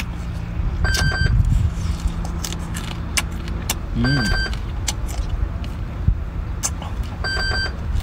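Mantis shrimp shells crunching as they are chewed: short sharp crackling clicks over a steady low engine hum.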